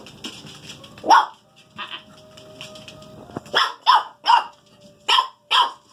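Seven-week-old corgi puppies barking in short, high yips: a single yip about a second in, then a quick run of five yips in the second half.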